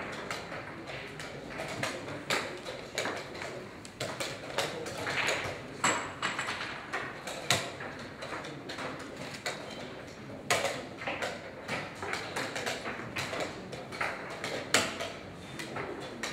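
Irregular clacks and taps of wooden chess pieces being put down and chess clocks being pressed in fast blitz games at nearby boards, over a steady background din of the room. The sharpest knocks come about ten and fifteen seconds in.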